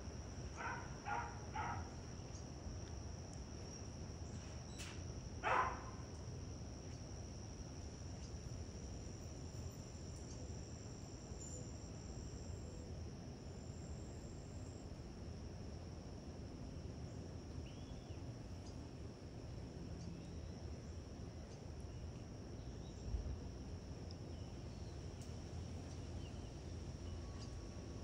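A steady, high-pitched insect trill runs throughout. Three short bird calls come in the first two seconds, and a single louder call about five and a half seconds in.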